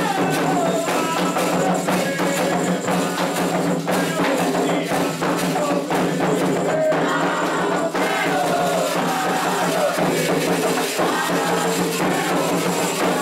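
Candomblé ritual music: steady rhythmic drumming and percussion with voices singing a chant.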